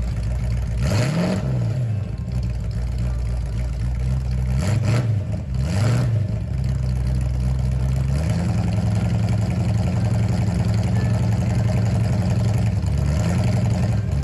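Edited-in soundtrack of rock music mixed with engine-revving sounds, the low drone rising and falling in pitch several times, then holding steady in the second half.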